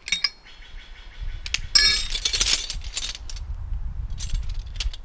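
Metal climbing hardware, carabiners and a belay device, clinking and jangling as it is handled, in quick clusters of clicks, the densest about two seconds in and another group near the end.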